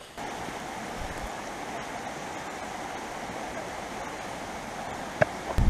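A rushing creek running over rapids, a steady water rush. Near the end there is a sharp click, then a low rumble starts.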